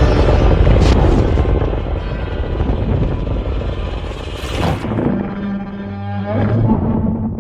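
Godzilla monster sound effect: a loud, deep rumbling blast with two sharp hits, about a second in and just before five seconds, then a deep pitched growl over the last couple of seconds.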